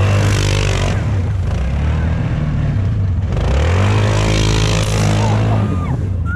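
ATV engine revved hard twice as the quad spins donuts in snow: each rev rises and holds, with a brief drop about three seconds in. Each rev comes with the hiss of snow thrown up by the spinning tires.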